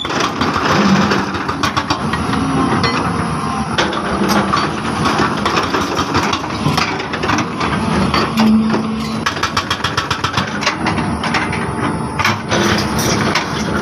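Excavator's diesel engine running, with frequent metallic clanks and knocks throughout.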